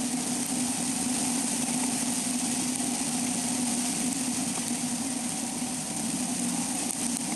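A moving vehicle heard from its roof: a steady engine drone with a constant hum and a loud wind and road hiss.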